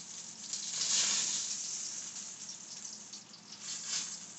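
Hot oil sizzling in a skillet of frying kingfish steaks. It swells about a second in and again near the end, then dies down.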